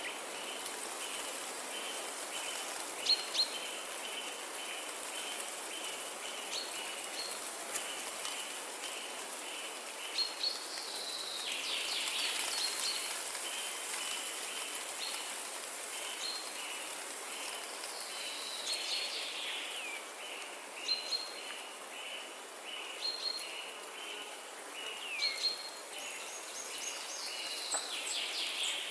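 Steady hiss of light rain with birds chirping over it: one high note repeated evenly about twice a second, with other chirps and short falling whistles mixed in.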